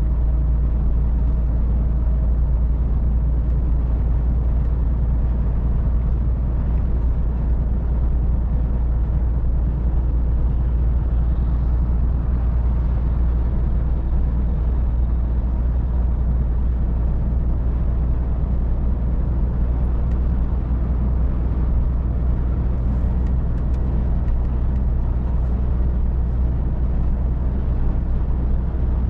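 Scania R450 truck's 13-litre inline-six diesel droning steadily at motorway cruising speed, with tyre and road rumble, heard from inside the cab.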